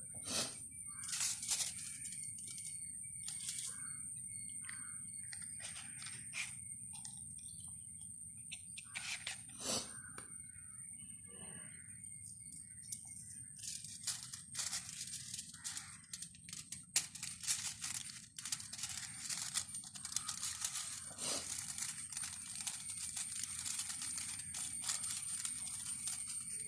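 Aluminium foil being handled and crumpled: irregular crinkling crackles, scattered at first and coming thick and fast in the second half. A steady high whine and a low hum run underneath.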